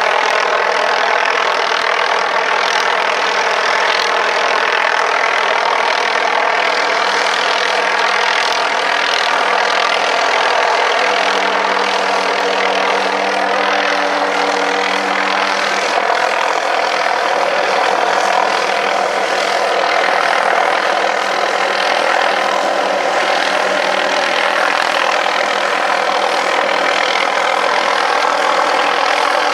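MD 500E helicopter running steadily, its turbine whine and rotor blended into one loud drone. A lower hum comes up for a few seconds midway.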